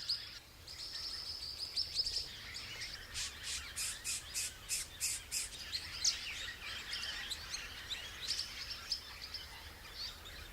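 Swift parrots calling: a busy stream of high, squeaky chirps from several birds, with a run of about eight quick, sharp notes about three seconds in.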